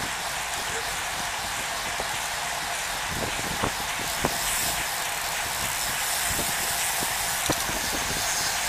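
Steady rushing wind and tyre noise on a bike-mounted camera riding in a pack of road bicycles, with a few sharp clicks scattered through it.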